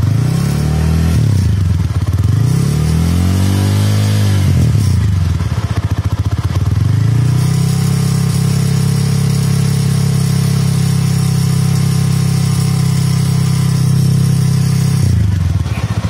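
TVS Apache RTR 200's single-cylinder engine heard at the silencer, revved up and back down a few seconds in, then idling steadily. A tinny rattle comes from inside the silencer, as if something has broken loose in it: a manufacturing defect of the silencer.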